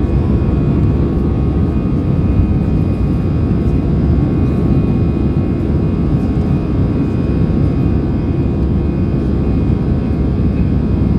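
Airbus A319 cabin during the climb after takeoff: steady, loud roar of the jet engines at climb power, with a steady whine of several tones over it, heard from a window seat beside the engine.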